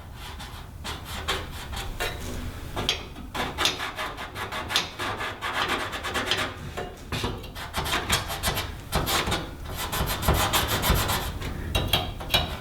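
Calligraphy pen drawing on the back side of a panel: many quick scratchy rubbing strokes, coming faster in the second half.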